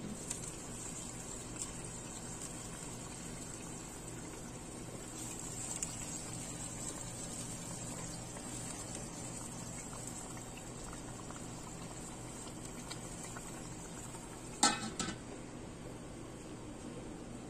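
Sardines in tomato sauce boiling in a stainless steel pan, a steady bubbling. Two sharp knocks near the end.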